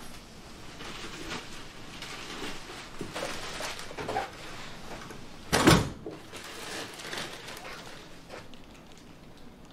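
Footsteps coming up wooden stairs, with scattered knocks and rustling, and one heavy thump a little past halfway through.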